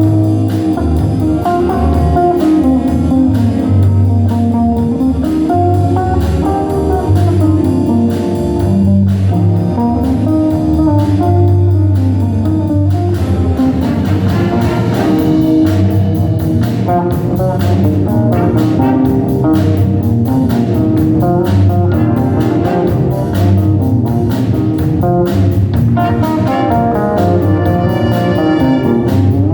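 A band playing a tune: a steady low bass line under shifting melody lines, with brighter upper notes coming in near the end.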